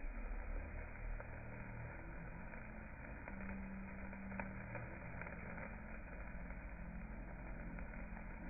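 A steady low mechanical hum and rumble, like an engine running, with a few faint clicks.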